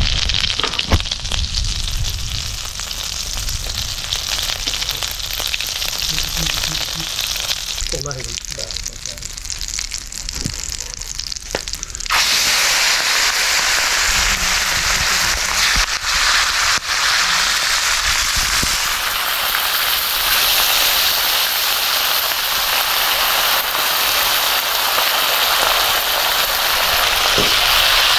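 Food frying in hot oil in a pan: a moderate sizzle with scattered clicks and clatter, then about twelve seconds in the sizzling jumps suddenly much louder and stays loud, as when food goes into the hot oil.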